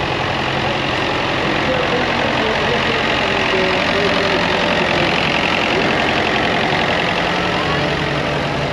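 Vintage tractor engine running steadily as the tractor drives slowly past.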